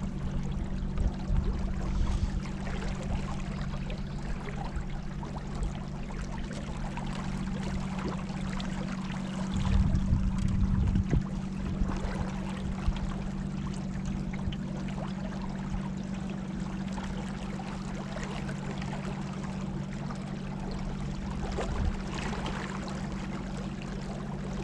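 Water rushing and lapping around a moving kayak, over a steady low hum. About ten seconds in, wind buffets the microphone for a second or so.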